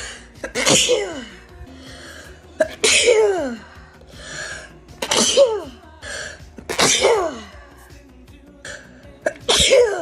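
A person sneezing in a rapid fit: five loud "achoo" sneezes about two seconds apart, each falling in pitch, with quick in-breaths between them.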